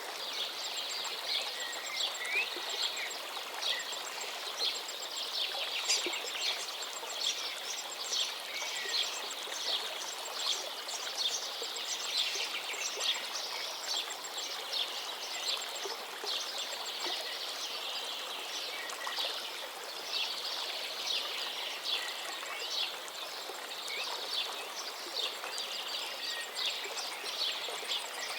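A chorus of songbirds singing, with a dense run of quick high chirps and trills, over the steady rush of a flowing forest river.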